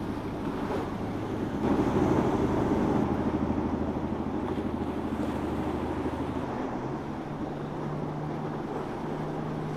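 Boat engines running as boats pass through the inlet, with water rushing along the hull and wake. Early on it is the inboard engine of a cabin fishing boat. About seven seconds in, a different steady engine tone takes over from an outboard-powered center-console boat.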